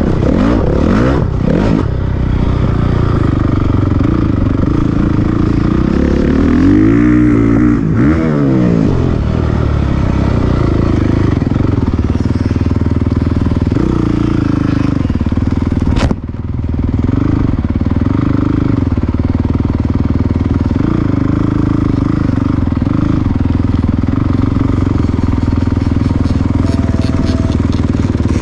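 Motocross dirt bike engine heard from the bike itself, revving up and down hard in the first part. About halfway through there is a sharp click and a brief drop in level, then the engine runs steadier at lower revs with small blips of the throttle.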